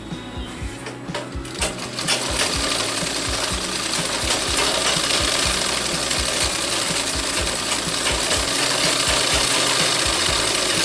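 Sewing machine stitching fabric, a fast rhythmic clatter of needle strokes. It runs slower and quieter for the first couple of seconds, then picks up and runs steadily.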